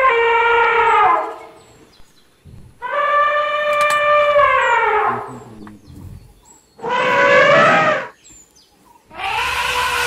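Asian elephants trumpeting: a series of loud, pitched calls, each held for a second or two and then sliding down in pitch. One call ends about a second in, a second runs from about three to five seconds, a shorter, harsher one comes about seven seconds in, and a fourth starts near the end.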